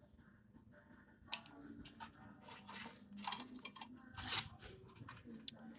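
Hands working an old car wire harness free: a sharp click about a second in, then scattered small clicks, scrapes and rustling of wire and clips.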